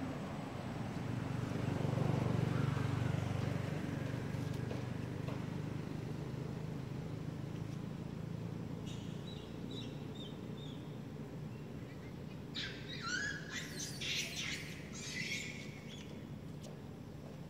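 Short, high-pitched animal chirps and squeaks over a steady low background rumble. A few faint chirps come about nine seconds in, then a louder cluster of squeaky calls between about twelve and sixteen seconds.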